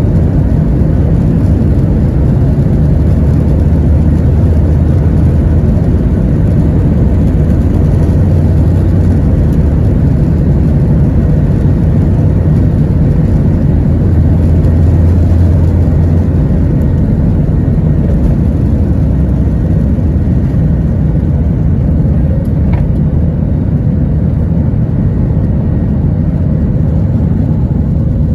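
Boeing 737 jet engines at high thrust heard from inside the passenger cabin: a loud, steady low rumble with airflow noise.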